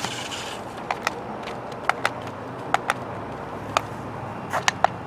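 Toy remote-control stunt car driving, its hard plastic body and hollow rubber wheels giving about ten sharp clacks and knocks at uneven intervals against the ground.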